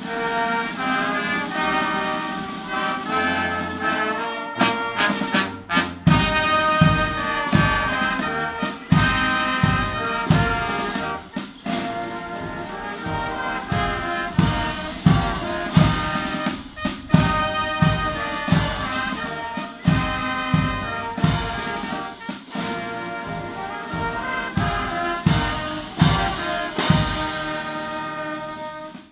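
Brass band with drums playing: sustained brass chords, joined about six seconds in by a steady bass-drum beat of about two strokes a second.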